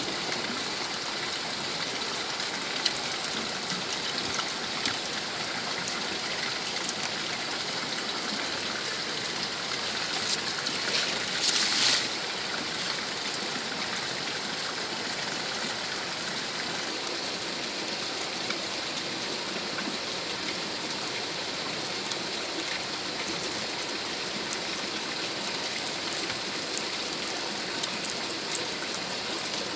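Steady rushing noise like running water, with faint scattered clicks and a louder rustle lasting about a second and a half, some eleven seconds in.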